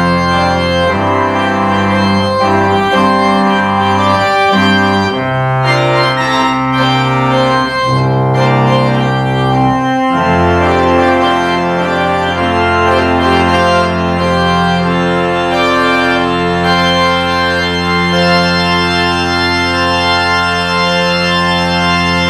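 Church organ playing slow, sustained chords that change every second or so at first, then settle into long held chords for the second half.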